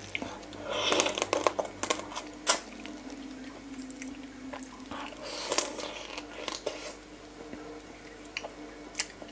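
Close-up wet eating sounds of raw fish-sauce-pickled blue swimmer crab: chewing and sucking meat from the shell, with scattered squelches and clicks in short clusters about a second in, around the middle and near the end. A faint steady hum runs underneath.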